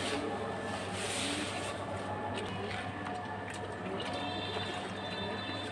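Stiff stick broom sweeping a wet concrete floor: scratchy swishing strokes, the clearest about a second in, over a steady low hum.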